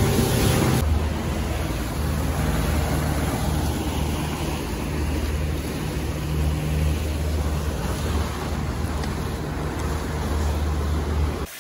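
Motorboat engine running at a steady cruising speed, a low even hum under the rush of water and wind past the hull. The sound changes abruptly about a second in and then holds steady.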